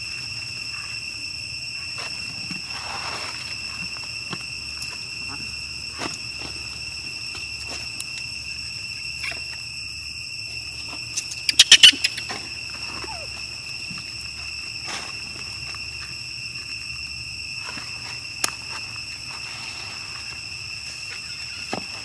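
Steady high-pitched insect chorus that runs on at a couple of set pitches. About halfway through, a quick run of about six sharp clicks stands out loudest, with a few faint ticks scattered elsewhere.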